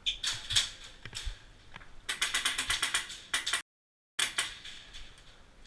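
Airsoft electric rifle firing: a few single shots, then a rapid full-auto burst of about ten shots a second lasting about a second, the gearbox clattering as it cycles. The sound drops out completely for half a second just after the burst.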